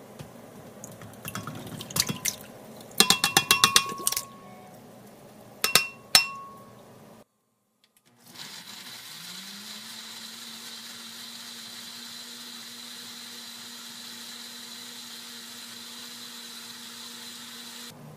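Several sharp clinks and clicks in the first few seconds, then a countertop blender's motor spinning up with a rising pitch and running steadily, pureeing chipotle peppers in adobo with water in a glass jar.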